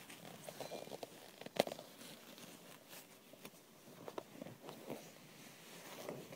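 Handling of a small box and a roll of duct tape while it is taped shut: quiet scattered taps, rustles and bits of tape pulling, with one sharper click about a second and a half in.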